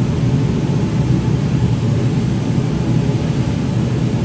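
Steady, loud mechanical running noise, a low rumble with a faint high whine, from a pressing setup of steam iron and suction ironing table while a cotton shirt sleeve is ironed.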